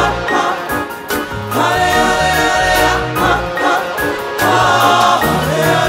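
Gospel vocal group singing "Halle halle ah, ho ho" in several voices with held notes, over instrumental backing with a bass line and a steady beat.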